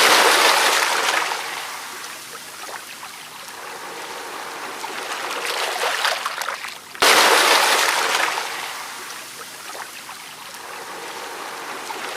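Flowing, splashing water sound effect for a flash flood, loud at first and settling to a softer trickle, then cutting back in loud about seven seconds in and settling again.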